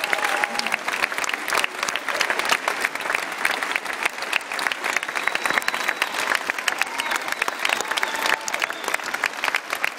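A large audience applauding: dense, steady clapping from many hands.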